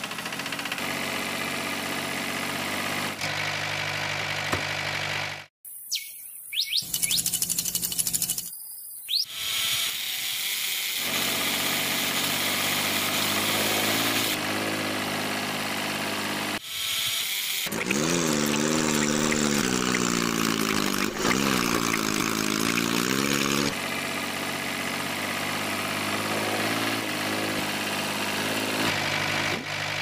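An engine running steadily, cut off abruptly twice about five to nine seconds in. Past the middle its pitch rises and falls for a few seconds as it revs.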